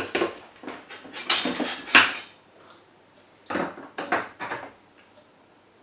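The plastic lid of a Monsieur Cuisine Plus food processor is fitted and locked onto its stainless-steel mixing bowl: short knocks and clatters in three groups, the last about three and a half seconds in. The motor is not yet running.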